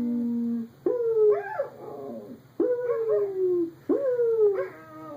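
Dog howling: a held pitched note ends under a second in, then three howling calls follow, each starting suddenly and sliding down in pitch.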